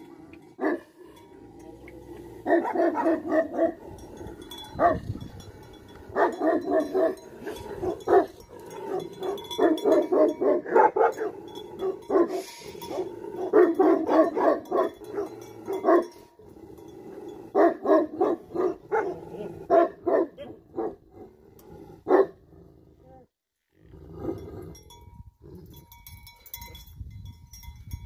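Tibetan mastiff barking in repeated volleys, each a second or two of rapid barks, with short pauses between them; the barking dies down a few seconds before the end.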